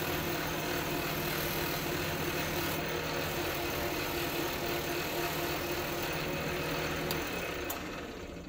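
Central Machinery mini lathe running with cloth buffing wheels: a steady motor hum with the rushing hiss of Micarta knife scales pressed against the spinning, compound-loaded wheel. About seven seconds in there are a couple of clicks, the hum stops, and the sound winds down.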